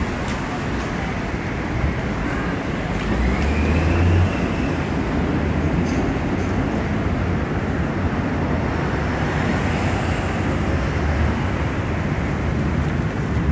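Night-time city street traffic noise: a steady wash of passing cars, with a low rumble that swells briefly about three to four seconds in.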